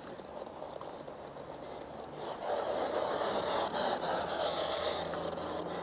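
Steady outdoor noise with fine pattering ticks, which swells louder about two and a half seconds in, over a faint low steady hum.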